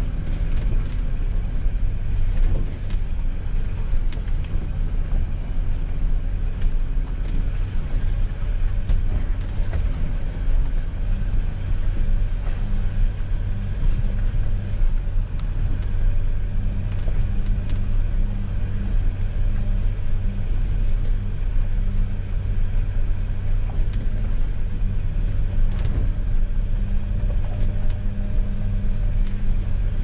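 A 4x4's engine running steadily at low revs, heard from inside the cab as it crawls along a rutted dirt lane, with occasional light knocks and rattles over the bumps.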